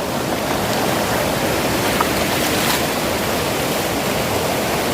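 River water rushing steadily over a waterfall, with the river swollen by rainy-season flow.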